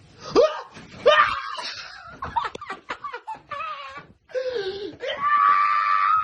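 A man's wordless yelling and laughter, ending in a long, high held yell.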